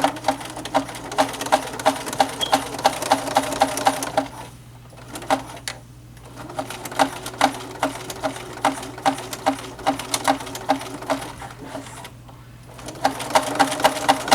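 Sewing machine stitching a pack strap down in three runs of even, rapid ticks, stopping briefly twice between runs.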